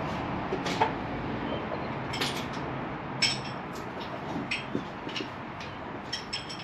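Irregular light metallic clicks and clinks, a dozen or so, over a steady background hum, from hands-on work with metal parts and tools as the transmission is jacked up.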